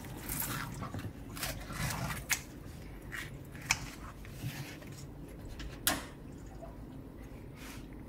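Intermittent small clicks, taps and rustles of food being handled and prepared by hand, with about seven sharper taps standing out against a low background.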